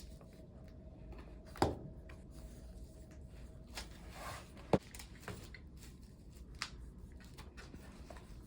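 Quiet handling of a hardcover book and wax paper: light rustling with a few sharp taps or clicks, the loudest about a second and a half in and again just before five seconds in.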